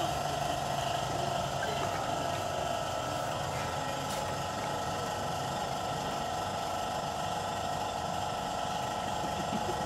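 A machine running steadily, a constant mechanical hum with a held tone.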